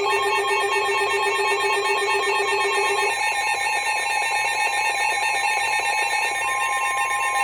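Electronic emergency-alert tones announcing a severe thunderstorm warning: rapidly alternating beeps over steady tones. The pattern changes about three seconds in, and a single steady tone sounds near the end.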